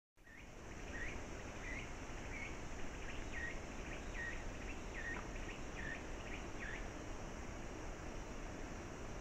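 Steady high insect hum, with a run of about ten short, evenly spaced chirps, roughly one and a half a second, that stops about two-thirds of the way through.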